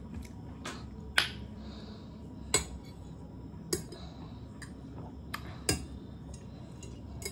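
A metal fork clinking and scraping against a plate as a child picks at noodles: scattered sharp clicks about a second apart, three of them louder than the rest.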